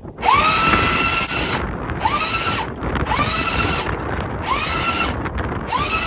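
Electric anchor windlass motor whirring in five short bursts, each one spinning up in pitch and then holding steady. The windlass button is being tapped to haul the anchor chain in slowly. Wind buffets the microphone underneath.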